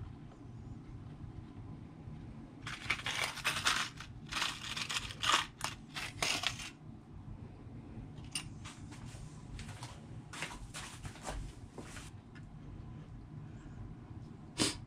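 Small hardware being handled at a workbench: several bursts of rustling and crinkling as the picture hanger and tiny nails are sorted out, then scattered light clicks of the nails and needle-nose pliers against the wood.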